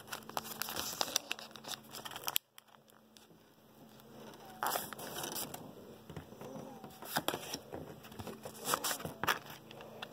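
Foil Pokémon booster-pack wrapper crinkling and cards being slid out and handled, in scattered crackly rustles. It drops to near silence for about two seconds, roughly two and a half seconds in, before the crinkling picks up again.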